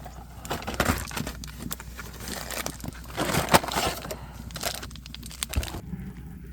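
Footsteps crunching unevenly over the ground, stopping abruptly about six seconds in.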